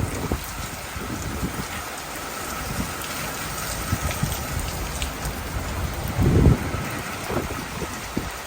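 Heavy hurricane rain pelting down in a steady hiss of scattered drops, with a brief low rumble about six seconds in.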